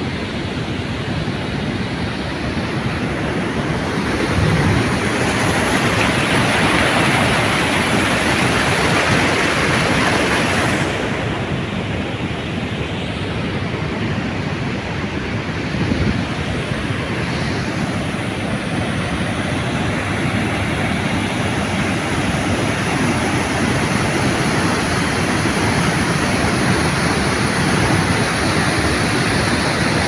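Water pouring over a curved concrete overflow weir and churning below it: a steady, loud rush of falling water that swells for several seconds in the first half.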